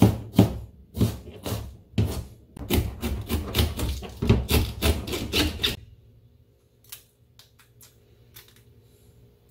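Kitchen knife mincing onion and then cabbage on a plastic cutting board: sharp chops, about two a second at first, then quicker, around four a second. The chopping stops about six seconds in, and only a few faint light taps follow.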